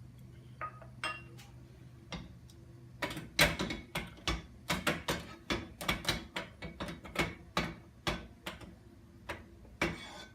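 A utensil clanking and scraping against a frying pan as food is stirred, in a run of sharp metallic knocks about two or three a second from about three seconds in. A low steady hum sits under the first few seconds.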